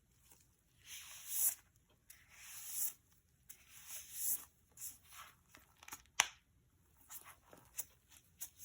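Packaging being handled: a series of papery swishes and rustles, each rising to a peak, then lighter scrapes and a sharp click about six seconds in.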